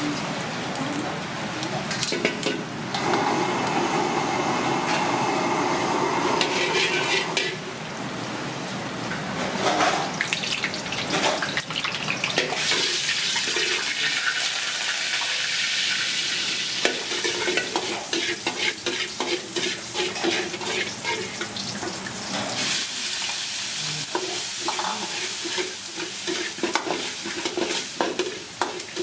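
Diced corn and carrot stir-frying in a hot steel wok: the oil sizzles steadily while a metal spatula scrapes and clacks against the wok. The clacking comes quicker and denser in the second half.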